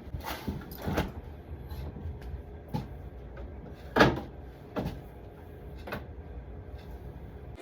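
Knocks and clunks of containers, shelves and the door being handled in a refrigerator, about six in all, the loudest about four seconds in, over a low steady rumble.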